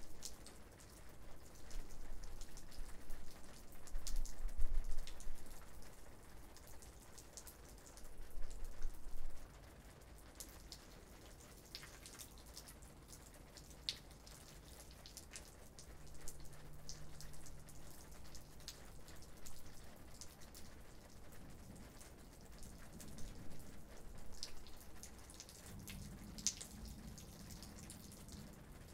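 Light rain: scattered individual raindrops ticking on nearby surfaces over a faint hiss of rain, with a few low rumbles in the first ten seconds.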